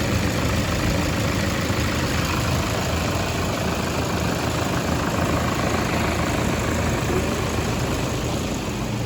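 Car engine idling steadily with the air-conditioning system switched on and running.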